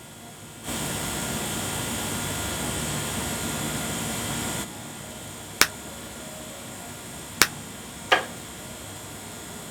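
Workshop tool sounds: a steady whirring hiss for about four seconds that stops abruptly, then three sharp strikes, the last one ringing briefly.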